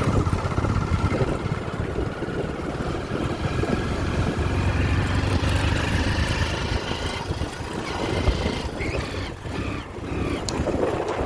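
Motorcycle engine running steadily during a ride.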